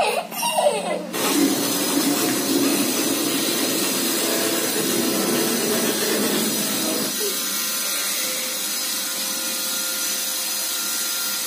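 A loud, steady motor whirr like a household appliance or power tool, starting about a second in and changing tone about seven seconds in.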